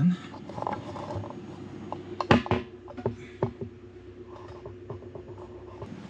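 Scattered clicks and knocks of hands working inside a plastic 100-litre fresh-water tank, the loudest pair about two and a half seconds in, over a steady hum from the van's idling engine and air conditioning.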